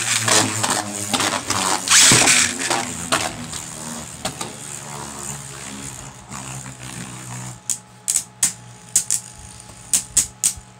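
Beyblade Burst spinning tops ripped from string launchers into a plastic stadium: one launch right at the start and a second about two seconds in. Both tops spin with a whirring hum that slowly fades. From about seven and a half seconds in they repeatedly clash, with sharp plastic clacks.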